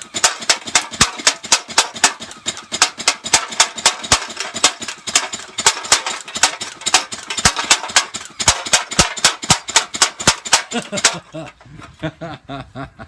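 Battery-powered P90-style gel blaster firing on full auto in one long burst: a rapid string of sharp shots at roughly eight a second that stops about eleven seconds in.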